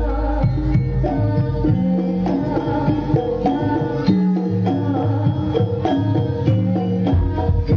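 Loud Javanese folk-dance music accompanying a jaranan-style dance: hand drums and struck, ringing percussion playing a brisk rhythm with a steady bass.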